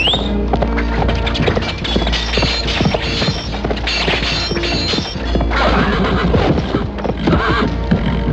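Cinematic martial-arts fight sound effects over music: many quick hits and clattering strikes in fast succession above a steady low drone, with a short rising sweep at the very start.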